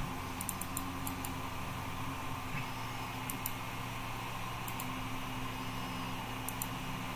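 Steady low machine hum, like a computer fan, with a few sharp mouse clicks, mostly in quick pairs.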